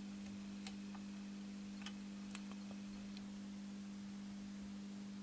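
Steady low electrical hum with a few faint ticks, as a ceramic screwdriver slowly turns the idle-current (bias) trimmer potentiometer of a Marantz 2215B stereo receiver.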